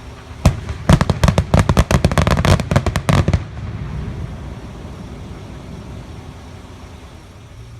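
Firecrackers going off: a single bang about half a second in, then a rapid string of bangs, several a second, for about two and a half seconds that stops abruptly. A low steady rumble runs underneath.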